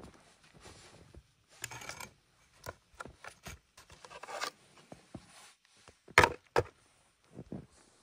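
Rustling and scraping of camping gear being handled as a plastic snow shovel is pulled from a snow-covered pack, with two sharp knocks in quick succession about six seconds in.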